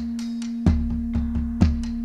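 Live band playing an instrumental stretch: a held low note runs under a drum beat, with strong beats about once a second and lighter ticks between them.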